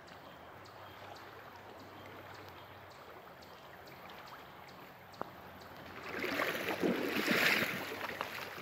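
Shallow creek water running with a low steady wash, then about six seconds in a louder spell of splashing and sloshing as a big brown trout is grabbed and lifted out of the shallows.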